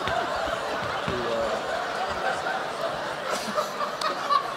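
Many people laughing together at a joke, a continuous mass of chuckles and laughs from an audience.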